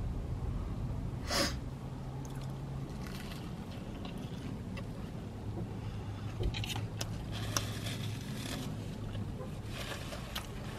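Close-miked chewing and wet mouth sounds of a person eating a burger with her mouth closed, with scattered clicks and smacks in the second half. A low steady hum runs underneath, and there is one short burst of noise about a second and a half in.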